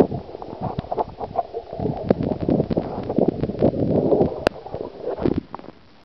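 Water sloshing and gurgling around the camera's microphone at or just under the sea surface, with irregular splashes and bubbly clicks, dying down near the end.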